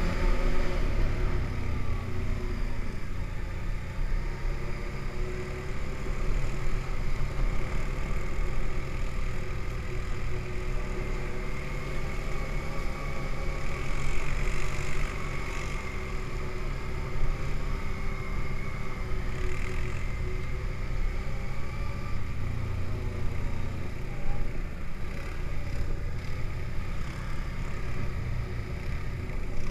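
ATV engine running steadily under way, heard from the rider's seat, its pitch slowly rising and falling as the throttle changes.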